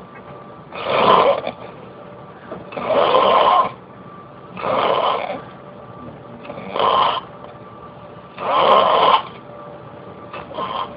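Snoring: five snores, one about every two seconds, each lasting under a second, over a faint steady hum.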